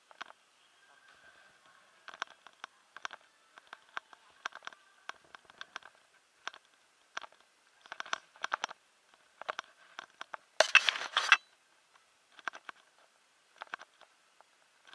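Footsteps tapping and clicking irregularly on a hardwood floor, with one louder noisy clatter lasting under a second about ten and a half seconds in.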